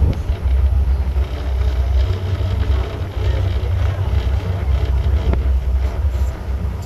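Wind buffeting the microphone on a moving boat, a steady heavy rumble over the boat's engine and water noise.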